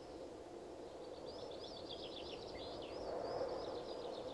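Songbird singing a fast run of short, high chirping notes that starts about a second in, over a steady low outdoor background noise.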